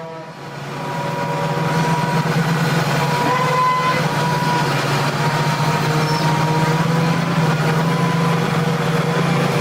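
Sennebogen 870 E Hybrid material handler running under work: a steady engine drone with a thin, slightly wavering whine above it. It swells up over the first couple of seconds.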